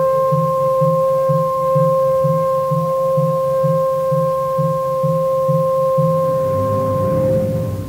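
Symphony orchestra playing a modern symphony: one long held high note sustained over a low figure pulsing about two and a half times a second. Near the end lower notes swell in and the held note breaks off as the music fades.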